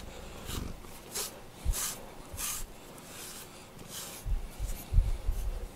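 FURminator deshedding brush drawn through a cat's fur in about seven short, hissing strokes, with a few low handling bumps in the second half.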